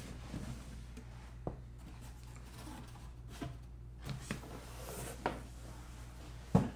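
Handling of a cardboard hat box and a felt cowboy hat: scattered light taps, rustles and scrapes as the hat is lifted out and the box moved, with a sharper thump near the end.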